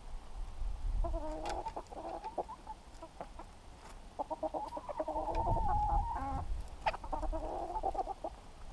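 Hens clucking and calling close to the microphone in three spells, the middle one a longer drawn-out call from about four to six and a half seconds in.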